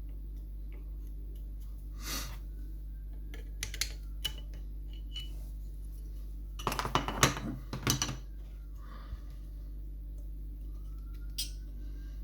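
Small metal parts of a dismantled lever mortice lock clinking and clattering as they are handled. The clinks come singly, then in a denser run past the middle.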